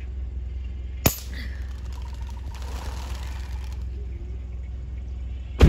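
Single shot from a .25-calibre Beeman under-lever PCP air rifle: one sharp crack near the end, the loudest sound. A fainter sharp click comes about a second in, over a steady low rumble.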